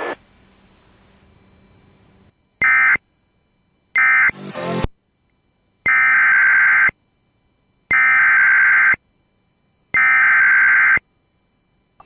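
Emergency Alert System digital data tones: two short bursts and a brief rising sweep, then three one-second bursts about a second apart, the coded header that opens the next severe thunderstorm warning.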